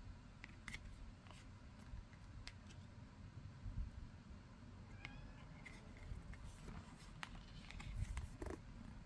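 Faint clicks and light taps of thick, matte hexagonal tarot cards being picked up, slid over one another and set down, a few scattered ticks over a quiet room.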